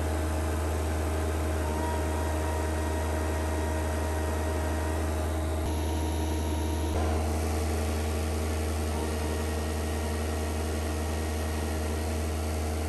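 Avant 528 mini loader's engine running steadily with a deep hum while its hydraulic pump is held at the pressure limit. The gauge reads about 345–350 bar, the machine running against the brake to test the power control valve setting.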